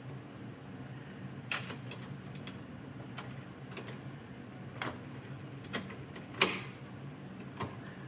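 Plastic housing of a smart deadbolt's interior unit being worked into place against a door: a few scattered clicks and knocks, the loudest about six and a half seconds in, over a steady low hum.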